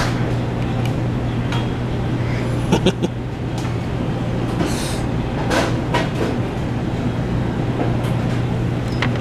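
Steady low hum of a shop interior's background machinery, with a few light clicks and knocks from a small plastic souvenir cube being handled.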